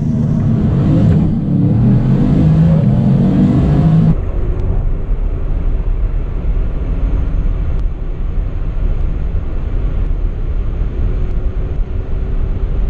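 Car accelerating hard, its engine note rising for about four seconds. About four seconds in the sound changes abruptly to a steadier low rumble of road and wind noise.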